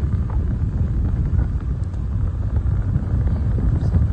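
Wind buffeting the microphone over the steady low rumble of a moving vehicle on the road.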